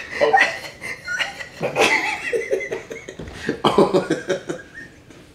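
A man and a woman laughing hard in irregular bursts, with a run of quick 'ha-ha' pulses about two-thirds of the way through, trailing off near the end.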